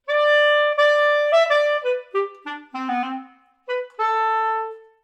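Clarinet playing a short phrase: two held notes, then a run of shorter, detached notes stepping downward, ending on a longer held note. It shows the phrase's tenuto and staccato articulation.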